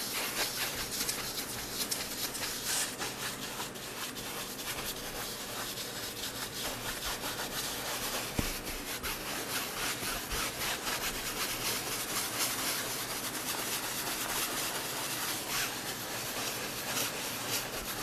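Paintbrush scrubbed in quick, repeated strokes over a primed canvas, rubbing linseed oil into the surface, a dry scratchy rubbing. A single sharp tap about eight seconds in.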